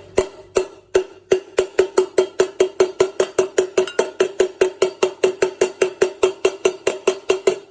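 Rapid, even banging on a hollow object, each strike ringing briefly at the same pitch: a few slower strikes at first, then about four to five a second, stopping abruptly near the end.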